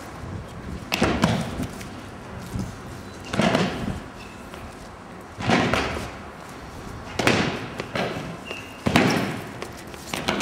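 Heavy thuds and slams of dancers' bodies and feet hitting the floor, a few times over, each one trailing off in a short echo.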